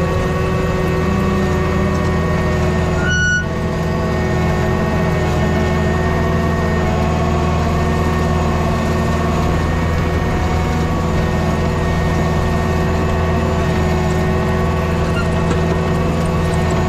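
Cat skid steer's diesel engine running steadily as the machine works a GB124 grader blade across dirt, heard from inside the cab. A short high beep sounds about three seconds in.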